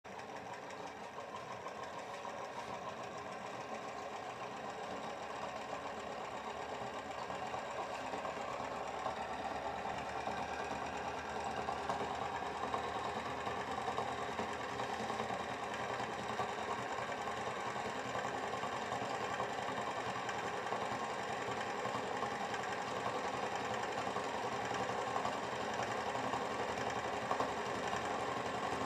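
Homemade back-EMF pulse motor-generator running, its magnet rotor spinning with a steady, fast mechanical whirr that grows gradually louder over the first dozen seconds and then holds steady.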